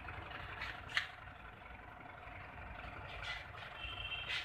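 Small thermoacoustic engine running steadily, its flywheel spinning at about 1200–1500 rpm, with a low, even hum. A few sharp clicks come through, one about a second in and one near the end.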